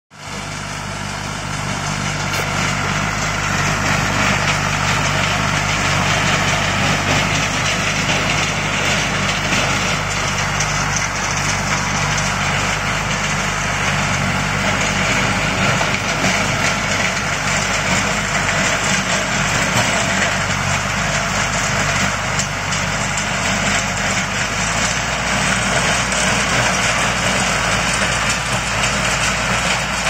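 A 50 hp four-wheel-drive compact tractor's diesel engine runs steadily under load, pulling a rear-mounted rotary tiller that churns through dry soil. The sound rises in over the first couple of seconds, then holds.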